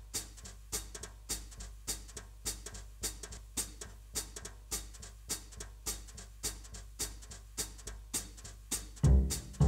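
Background music: a steady percussion beat of sharp high ticks, a little under two a second, with softer ticks between, over a low hum. Deep plucked bass notes come in near the end.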